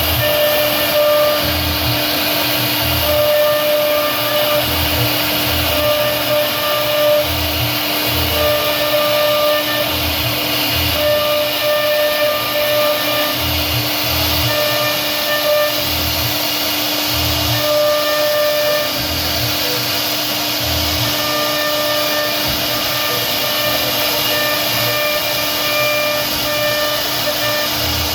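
CNC router spindle running as it carves wood: a steady whine and hiss, with a higher cutting tone that cuts in and out as the bit works through the cut.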